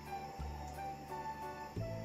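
Background music: held bass notes that change about every second and a half, under a simple higher melody.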